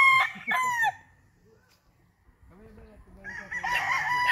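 Five-and-a-half-month-old cockerel crowing: the end of one crow falls away within the first second, and after a short pause a second crow begins about three seconds in and is still going at the end.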